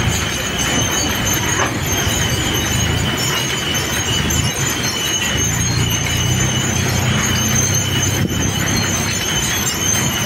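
John Deere 4x4 tractor's engine running steadily under load while its front loader lifts and tips crushed stone into a tipper truck, with a steady high squeal over the engine sound.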